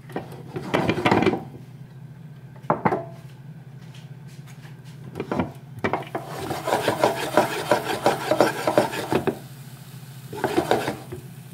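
Dry rasping and scraping as Montreal steak spice is worked into a pan of fresh tomato sauce: a few short strokes, then a gritty run of quick scrapes lasting about three seconds, and one more short burst near the end.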